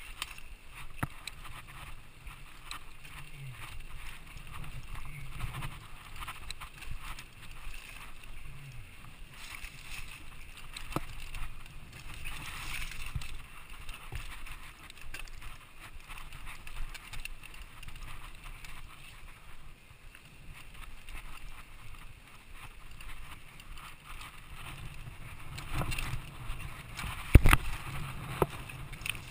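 Mountain bike ridden fast down a dry dirt singletrack: tyres rumbling and crunching over the dirt, dry brush swishing against the bike and rider, and scattered clicks and rattles from the bike. A hard knock from a jolt stands out near the end.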